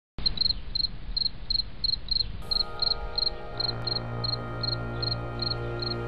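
Cricket chirping steadily, about two to three short chirps a second. Sustained music chords come in about two and a half seconds in and grow louder.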